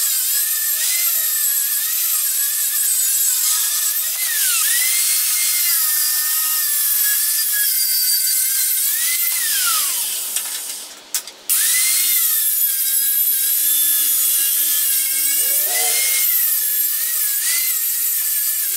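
A high-speed electric power tool cutting steel fence post to length, its motor whine sagging in pitch under the cut and recovering, with a steady hiss of cutting noise. About ten seconds in it is switched off and winds down, then starts again with a rising whine and goes on cutting.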